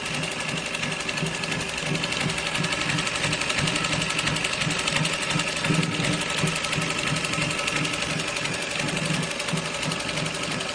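Industrial shell-stitch overlock sewing machine running steadily, sewing a shell-stitch edge along the fabric.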